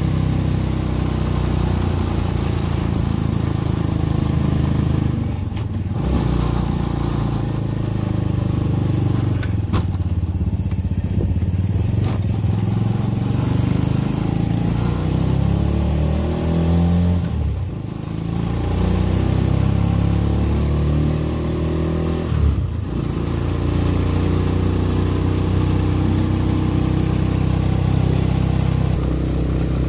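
Small engine of a home-built reverse trike running under way. Its pitch climbs and falls as it accelerates, with three short dips, about 5, 17 and 22 seconds in.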